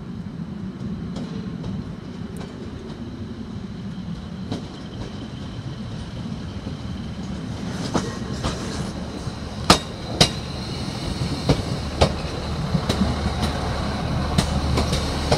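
A Class 155 Super Sprinter diesel multiple unit arriving slowly, the low hum of its Cummins diesel engines growing louder as it comes closer. From about halfway through, its wheels give a string of sharp, irregular clacks over rail joints and points.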